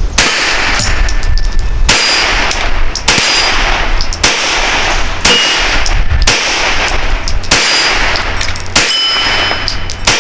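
Springfield Armory 1911 Garrison 9mm pistol firing about eight shots at a steady pace, roughly one every second or so, shooting 147-grain subsonic full metal jacket loads. Each shot is followed by a brief metallic ring.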